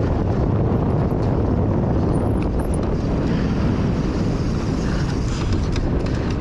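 Wind buffeting an action camera's microphone on a downhill mountain bike moving at speed, a steady low rumble, with the knobby tyres rolling over dry dirt and scattered short clicks and rattles from the bike.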